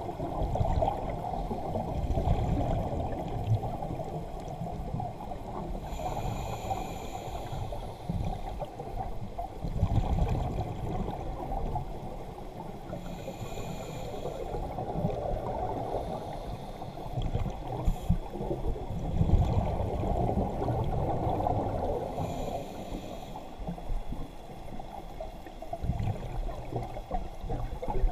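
Muffled underwater water noise, a dull low rushing and gurgling, with a brief hissing bubble sound three times, several seconds apart.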